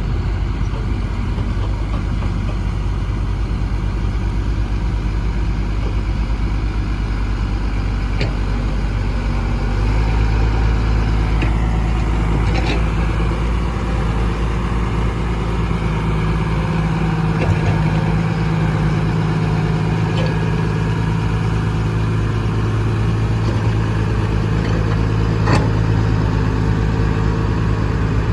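Excavator's diesel engine running steadily; its note rises and gets louder about ten seconds in. A couple of short knocks come over it.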